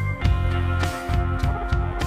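Background music with guitar over a steady beat and a strong bass line.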